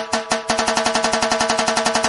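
Background electronic music: a fast, evenly repeating synth note pattern that doubles its pace about half a second in.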